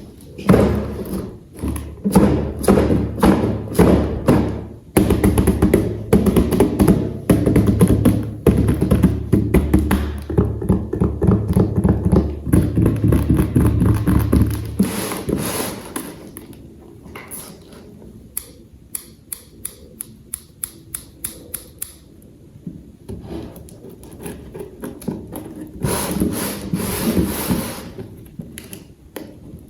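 Tapping, clicking and knocking of plastic toy parts being handled and fitted together, over music for roughly the first half. Midway there is a run of quick, evenly spaced clicks.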